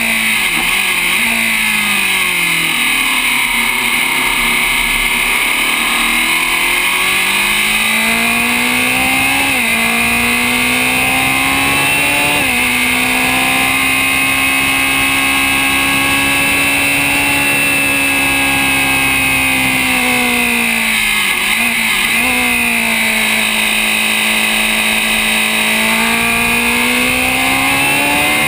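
Historic Grand Prix open-wheel race car's engine heard from the cockpit at racing speed, pulling hard up through the gears: the pitch climbs, drops sharply at upshifts about ten and twelve seconds in, then holds high and steady. About twenty seconds in the revs fall as the driver lifts and downshifts, then climb again under full acceleration.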